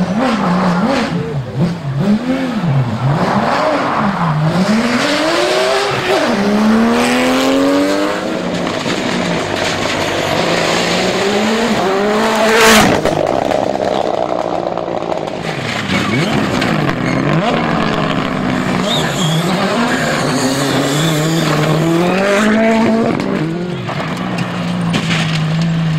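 Rally car engines revving hard, the pitch climbing and dropping again and again as the drivers shift gears and lift off through the stage. A single sharp bang comes about halfway through.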